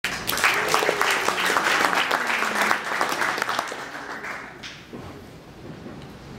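Audience applauding, the clapping dying away about four seconds in and leaving quiet room sound.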